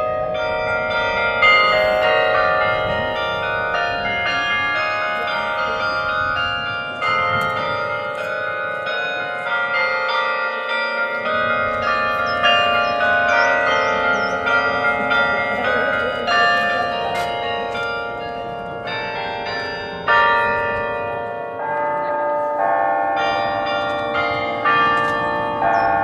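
Tower carillon bells played by hand from the carillon's keyboard, ringing out a melody with chords. Many struck notes overlap as each bell rings on, with a few louder strikes standing out.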